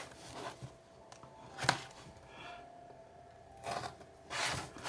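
Packaging being worked open by hand: a few short scraping and tearing noises with gaps between them, as the package resists opening.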